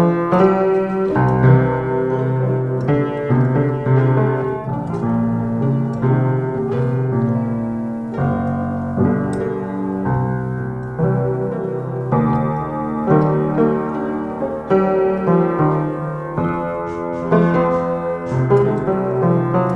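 Electric piano playing a steady run of chords over low bass notes.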